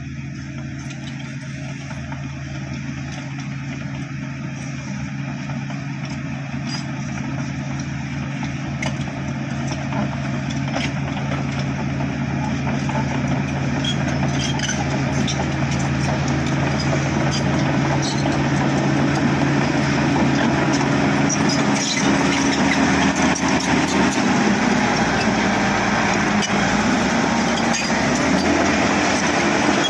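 Bulldozer's diesel engine running steadily and growing gradually louder, with scattered clicks; late on its pitch steps up as the engine works harder.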